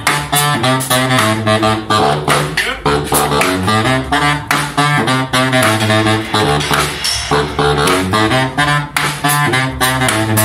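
A small street band of saxophones and brass horns playing a lively tune with a strong bass line over a steady, even beat.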